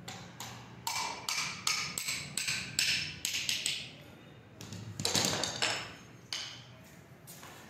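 Hand hammer striking a flat steel leaf-spring leaf in a run of about ten quick metallic taps, two to three a second. About five seconds in comes a longer scraping clatter, then two more single knocks near the end.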